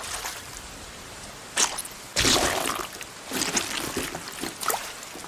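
Steady rain falling, with several louder watery splashes breaking in over it.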